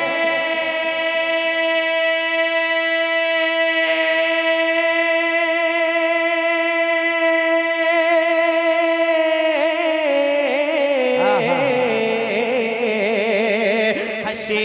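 A man's voice singing an Urdu naat, holding one long, steady note for about nine seconds. It then breaks into a wavering, ornamented run that slides down in pitch near the end.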